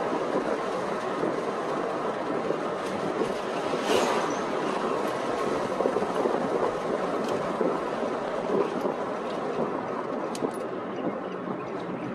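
Steady road and tyre noise heard inside the cabin of a moving car, with a few light clicks.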